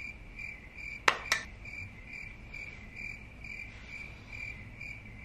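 A cricket chirping steadily and evenly, about two and a half chirps a second, with two sharp clicks close together about a second in.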